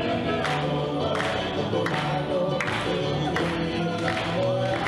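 Live Tongan song: group singing accompanied by guitars, with a steady beat.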